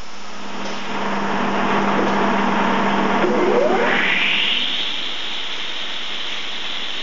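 Circular table saw switched on and spinning up. Noise builds about a second in, and a whine rises steeply in pitch between three and four seconds in. It then holds as a steady high whine with the blade at full speed.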